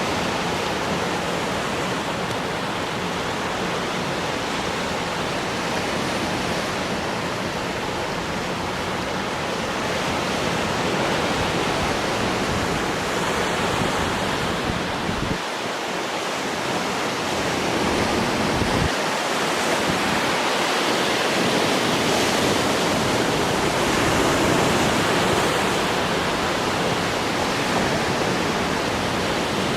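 Sea waves breaking and washing ashore: a continuous rush of surf that swells a little louder now and then.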